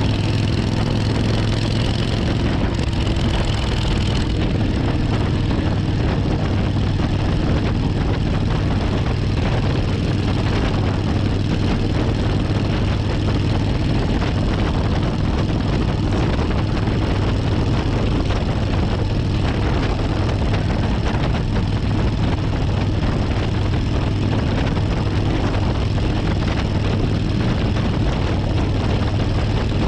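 Suzuki Intruder 1400's V-twin engine and exhaust running steadily at an even cruising speed, with no revving.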